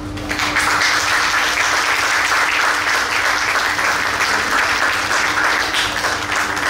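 Audience applauding: dense clapping that swells up within the first half second and thins out near the end.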